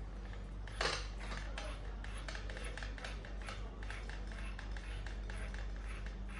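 Small irregular metallic clicks and clinks as a nut is worked by hand on the copper stud of a transformer's low-voltage bushing, with one louder clack about a second in.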